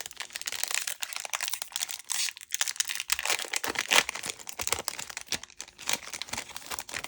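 Foil wrapper of a Topps Chrome trading-card pack crinkling and tearing as it is opened by hand: a dense crackle of many small snaps, loudest about four seconds in.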